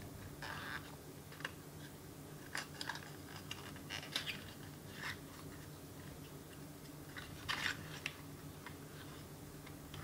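Small paperboard box being opened by hand: scattered faint crinkles, rustles and taps of cardboard flaps being pried and unfolded, with a slightly louder patch of crinkling about three-quarters of the way through.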